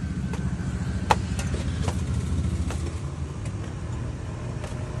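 A small engine idling steadily with a low hum, with scattered sharp clicks and knocks, the loudest about a second in.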